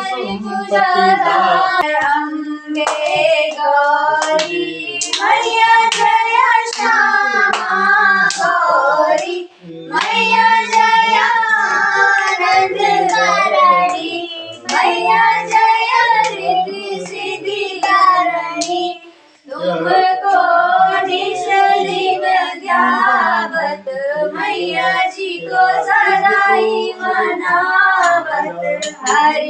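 Women and a girl singing a devotional aarti together, with hand claps keeping time.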